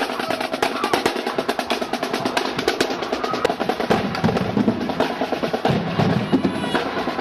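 Marching band drumline playing: snare drums rattling off fast strokes and rolls, with bass drums booming in about halfway through.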